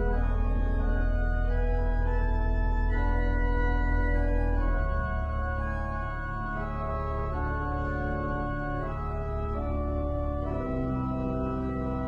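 Church organ playing slow, sustained chords over a deep held pedal note; the chords change every second or so, and the music grows a little softer about five seconds in.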